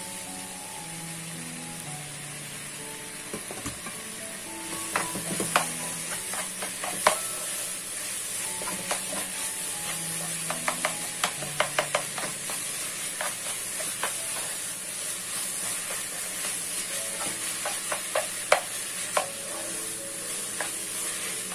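Minced beef with diced aubergine and onions sizzling in oil in a pot, with a steady hiss. From about five seconds in, a spatula stirring through the mixture adds many sharp scraping clicks against the pot.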